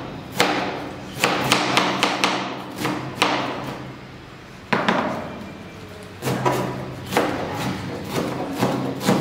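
Kitchen knife chopping cabbage on a plastic cutting board: irregular runs of sharp strikes on the board, a lull around four seconds in, then quicker, steadier chopping from about six seconds.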